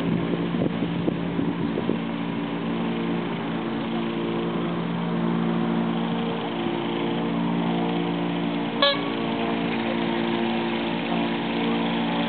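A steady, even motor drone, like an engine running, with one short sharp sound about nine seconds in.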